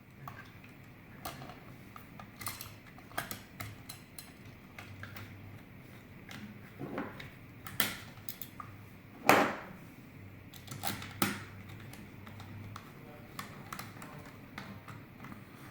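Scattered metallic clicks, clinks and taps of small lock hardware and screws being handled and fitted to a deadbolt, with a louder knock about nine seconds in.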